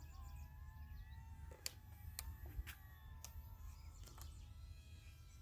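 Faint whine of a small RC airliner's two electric motors flying at a distance: thin, steady tones that drift slightly in pitch as the throttles change. Under it is a low wind rumble, and a few faint clicks come through.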